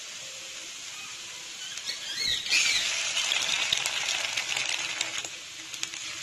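Hot oil sizzling in a pan. About two and a half seconds in, an egg drops into the oil and the sizzle turns louder, with crackling.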